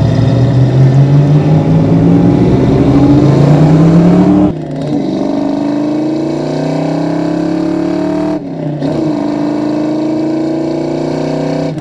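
1990 Ford Mustang LX 5.0's V8, through Flowmaster mufflers, accelerating hard through the gears. The exhaust note rises steadily in pitch, drops at a quick upshift about four and a half seconds in, climbs again, and shifts once more about eight and a half seconds in.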